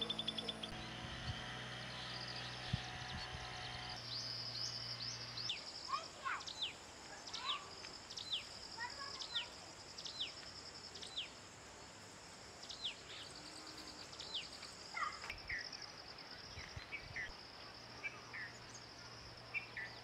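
Rural ambience: insects trilling steadily, with a bird giving a short falling whistle about once a second from about six seconds in, and scattered shorter chirps later.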